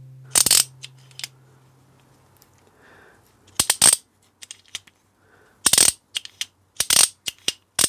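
Small metal engine parts clinking and clattering irregularly as they are handled and set down on a workbench, in a few quick clusters of sharp clicks.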